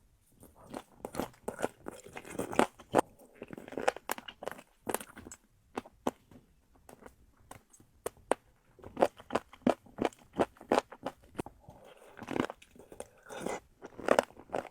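Close-up mouth sounds of someone biting and chewing duck feet: irregular crunches and wet clicks of skin and cartilage being chewed, easing off for a couple of seconds around the middle.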